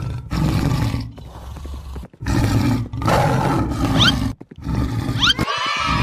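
An animal roaring in three long, rough stretches with brief breaks between them, with short rising squeaks high above the roar about four and five seconds in.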